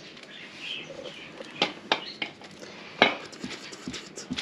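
A few sharp clinks and knocks from a plate and a metal pizza tray being handled while salami slices are laid on the dough, the loudest about three seconds in.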